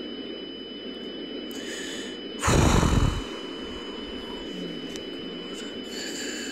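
Steady background hiss with a thin high whine. About two and a half seconds in, a loud rush of noise, strongest in the lows, lasts under a second. Fainter breathy puffs come just before it and near the end.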